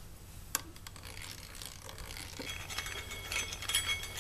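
Hand drill turning a step drill bit in a motorcycle's steel brake disc, enlarging a hole for a disc lock: light metallic scraping and clicking with the disc ringing, sparse at first and busier in the second half.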